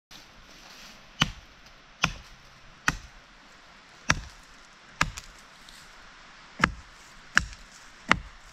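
Repeated chopping strikes: eight sharp, heavy chops a little under a second apart, with a couple of longer pauses between them.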